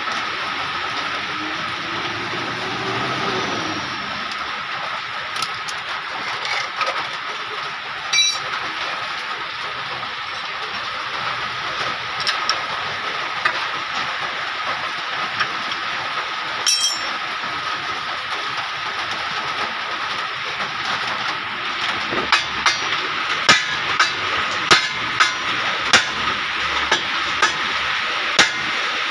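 Steady background hiss with a faint high whine. In the last seven seconds comes a run of sharp metallic clinks, about one or two a second, from hand tools working on the steel steering knuckle and tie rod end at the front wheel hub.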